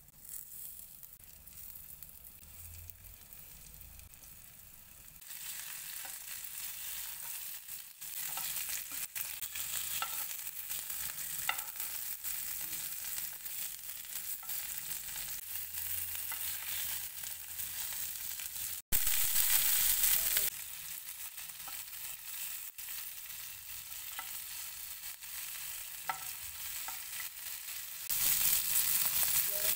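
Rava-coated ladyfish (muddoshi) pieces sizzling as they fry in hot oil in a shallow pan. The frying gets louder in steps as more pieces go in, with a few light clicks of a utensil against the pan.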